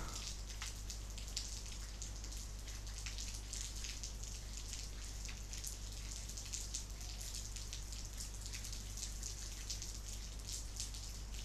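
Quiet background noise: a steady low electrical hum under a faint hiss, with scattered soft ticks.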